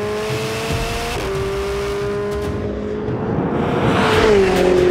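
Ferrari 488's twin-turbo V8 under load on a race track. Its pitch climbs slowly, dips about a second in, climbs again, then drops near the end as it gets louder.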